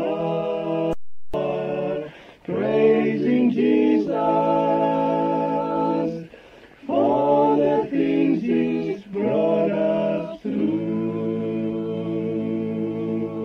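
A male vocal group singing a cappella in harmony: held chords broken by short pauses about two, six and a half and ten seconds in. The sound cuts out completely for a moment about a second in.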